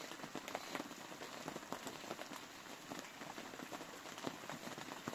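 Rain pattering steadily on the hut's plastic-sheet cover, a dense run of small drop ticks.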